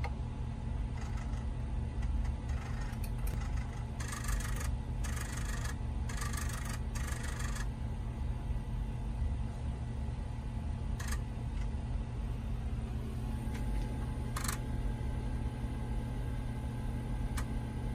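Radio Shack TRS-80 Mini Disk 5¼-inch floppy drives running a disk-to-disk backup: a steady motor hum, with the heads chattering in four quick bursts about four to seven and a half seconds in and single clicks later as they step between tracks.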